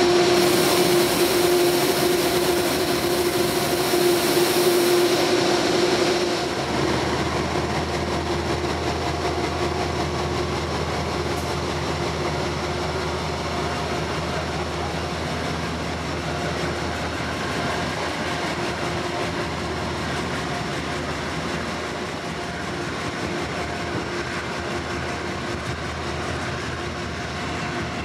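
Amtrak GE Genesis diesel locomotive passing at close range with a steady engine drone and a high hiss, loudest for about the first six seconds. Then a lower, even rumble of the passenger cars rolling by, slowly fading as the train pulls away.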